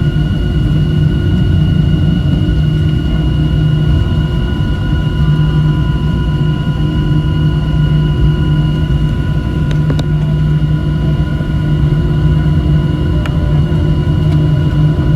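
Boeing 737-700 cabin noise after landing, heard from inside the cabin: a loud, steady low rumble from the CFM56 engines and airflow, with a few constant whining tones above it and a couple of faint ticks.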